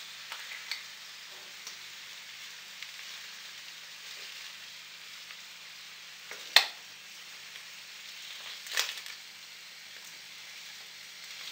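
Rabbit livers sizzling steadily in a frying pan as they are turned with a utensil. A sharp knock of the utensil against the pan comes about six and a half seconds in, and a softer one a couple of seconds later.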